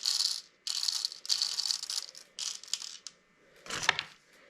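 Copper-coated steel BBs rattling as they are shaken, in several bursts, then a sharp knock near the end.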